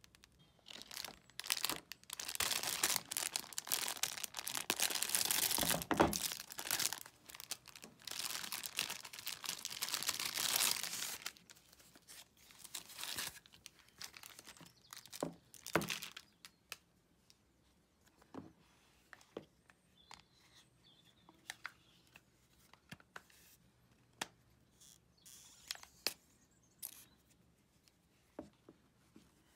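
Plastic protective film peeled and crinkled off a screen protector, a long crackling tear lasting about ten seconds. It is followed by scattered light clicks and rustles of plastic film and packaging being handled.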